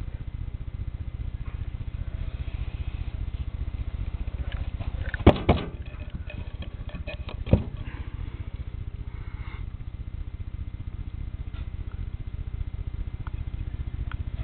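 A steady low rumble of handling noise, with two sharp knocks about five seconds in and one more about two seconds later.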